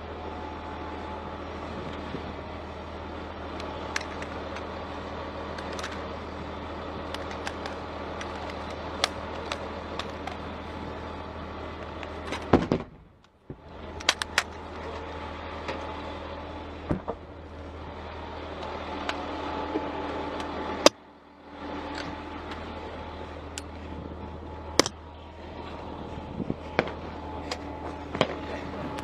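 Armored military vehicle's engine running steadily, with scattered sharp cracks of gunfire. Two much louder shots come about 13 and 21 seconds in, each followed by a moment where the sound nearly cuts out.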